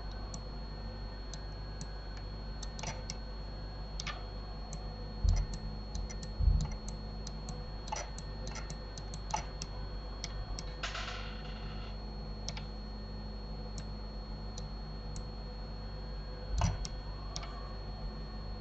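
Irregular clicks of a computer mouse and keyboard while sculpting in Blender, over a steady electrical hum, with a few dull low bumps.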